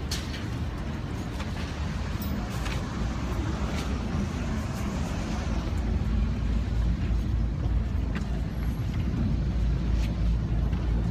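Low, steady engine rumble of a vehicle, growing a little louder about six seconds in.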